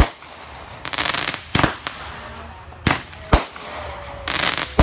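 Aerial fireworks going off: about five sharp bangs of bursting shells, with two spells of rapid crackling, about a second in and again near the end.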